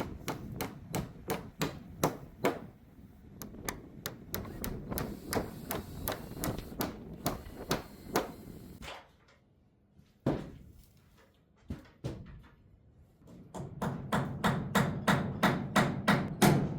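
Hammer driving nails into wood, with steady strokes about three a second. A pause of a few seconds in the middle holds only a couple of single knocks, then a quicker run of blows near the end.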